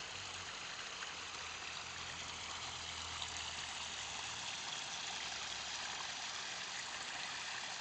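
Water trickling and splashing steadily down a small garden rock waterfall, with a faint low hum that fades out about halfway through.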